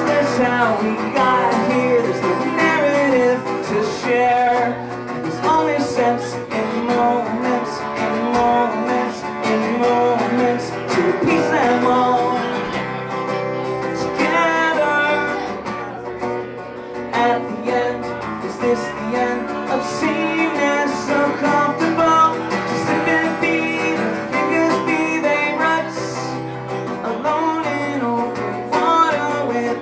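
A man singing while playing an acoustic guitar: a solo acoustic version of a dancey electronic rock song.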